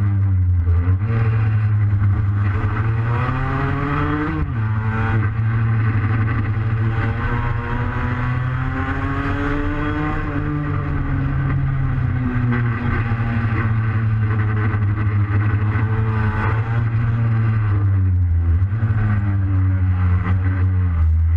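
Onboard sound of a tuned two-stroke Vespa racing scooter engine at race revs. Its pitch climbs as it accelerates and falls when the rider shuts off for corners, several times over, with a sharp drop about four seconds in.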